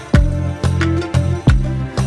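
Background music with a steady beat: bass notes and a percussive strike about twice a second, with plucked or melodic notes above.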